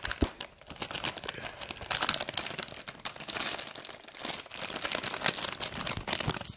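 Foil-backed plastic packets of squishy toys crinkling as they are moved and handled, a dense run of small crackles with no break.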